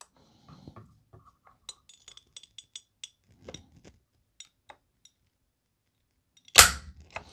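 Trigger of a Radikal NK-1 bullpup shotgun being pulled slowly by a trigger gauge. A run of faint clicks from the springs as the notchy trigger creeps is followed near the end by one loud, sharp snap as the trigger breaks and the hammer falls.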